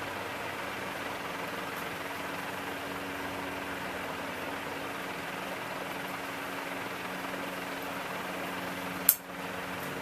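Montgomery Ward Evergo industrial ceiling fan, model E-3, running steadily at speed 3: a low motor hum with the rush of air from the blades. A single sharp click sounds near the end.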